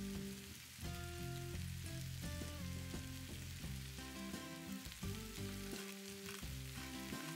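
Sliced mushrooms and onions sizzling as they fry in oil in a frying pan, a steady crackling hiss. Soft instrumental background music with held notes plays underneath.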